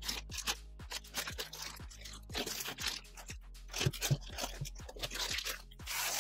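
Black plastic bag around a new toner cartridge crinkling and crackling as hands squeeze and pull at it to open it, over background music with a steady beat.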